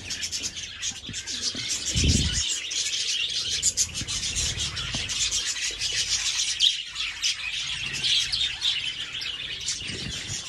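A flock of budgerigars and finches chirping and chattering continuously, many short chirps overlapping. A low thump about two seconds in.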